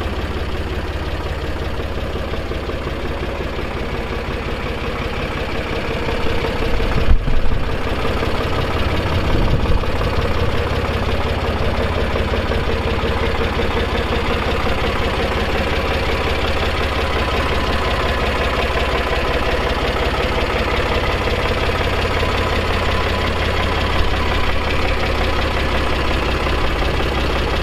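Fendt Farmer 307 LSA tractor's four-cylinder diesel engine running steadily as the tractor drives slowly, with a louder, rougher stretch about seven seconds in.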